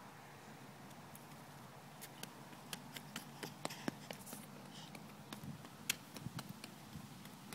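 Faint scattered clicks and light taps close to the microphone, most of them in the middle few seconds, as leaves are handed over and the phone is handled.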